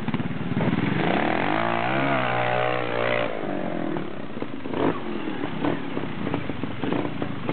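Trials motorcycle engine revving up hard and holding for about two seconds, then a run of short, irregular bursts and knocks as the bike works its way up a steep bank.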